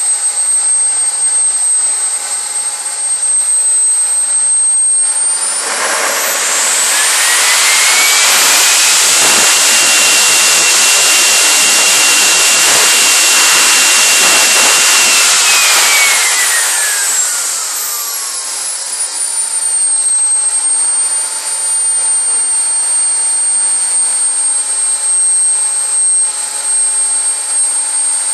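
JetCat P60 model jet turbine running with a steady high whine at idle, then throttled up about five seconds in: the whine rises and a loud rush of exhaust builds. It holds there for about ten seconds, then winds back down to idle.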